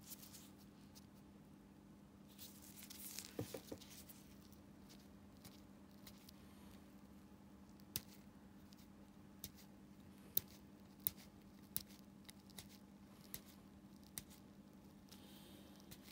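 Faint work of a flat steel pedicure blade on a big toenail: a short stretch of scraping about three seconds in, then scattered sharp clicks of the blade against the nail, over a low steady hum.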